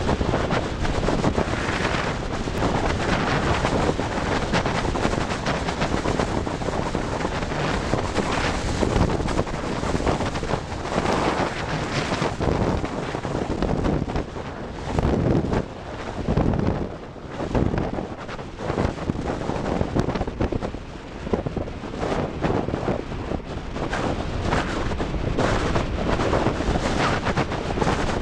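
Wind rushing over a handlebar-mounted camera's microphone on a bicycle descending at speed. It is a steady, loud rush that swells and drops in gusts, with a few brief lulls about halfway through.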